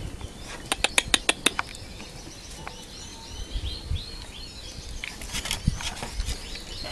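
Small birds chirping in short high notes, with a quick run of about six sharp clicks about a second in.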